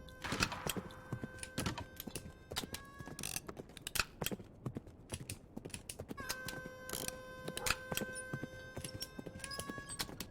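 Irregular rapid clicking throughout, over an online slot game's electronic sound effects: a held chord of steady tones sounds for about three seconds at the start and again for about three seconds later on.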